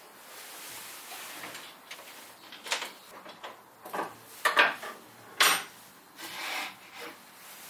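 Plywood pieces handled on a CNC router bed: several separate wooden knocks and clatters as parts are set down and moved, with a few softer scraping rubs.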